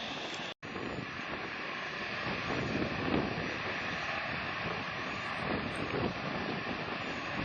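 Jet airliner at an airport, a steady rushing engine noise with wind buffeting the microphone. The sound cuts out for an instant about half a second in.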